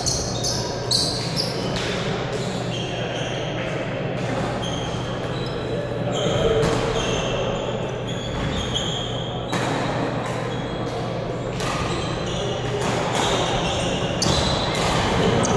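Badminton play in a large gym: sneakers squeaking briefly on the court floor and sharp racket hits on the shuttlecock, echoing through the hall over a murmur of voices.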